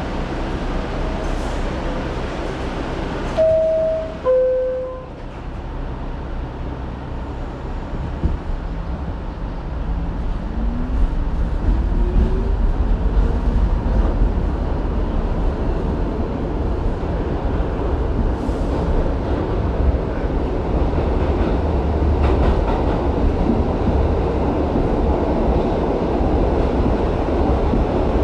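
R62A subway car: a two-note door chime, the second note lower, then the train pulls out. Low running noise builds, a motor whine rises in pitch as it accelerates, and the car runs on with steady, louder rail noise.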